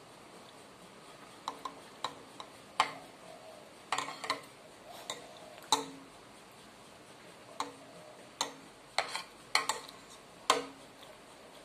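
Metal spoon and fork clinking and scraping against a ceramic plate: a run of irregular, sharp clicks, starting about a second and a half in, as meat is worked off the bone.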